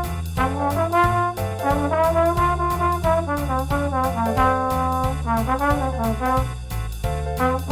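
Trombone improvising a jazz solo, a run of short phrases with some notes bent and glided on the slide, over an accompaniment of a stepping bass line and regular drum strokes.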